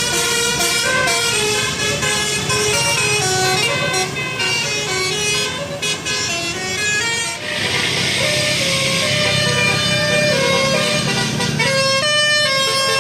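A bus's 'telolet' Basuri multi-tone musical horn playing a melody of stepped notes. A rushing hiss comes in about halfway through, with a low rumble under it.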